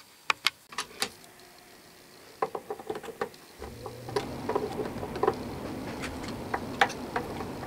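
Scattered sharp metal clicks and taps of a screwdriver, turned with an adjustable wrench, working on the screws of a three-jaw lathe chuck held in a bench vise. A steady low hum comes in about three and a half seconds in.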